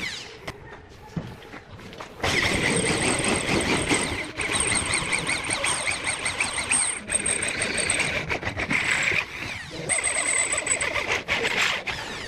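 Electric hand drill running under load, drilling metal, with a high steady motor whine. It is quieter for the first two seconds, then runs loud, easing off briefly a few times.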